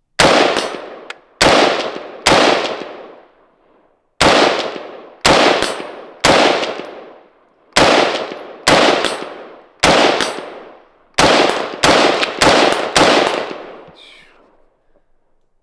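A semi-automatic Heckler & Koch G36 rifle fired about fourteen times at steady single-shot pace, roughly one shot a second, with a short pause after the third and quicker shots near the end. Each shot is a sharp crack followed by a long echo.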